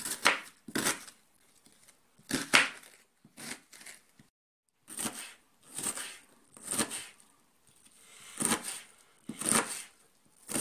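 Kitchen knife chopping an onion on a plastic cutting board: irregular knocks of the blade striking the board, about one a second, some in quick pairs.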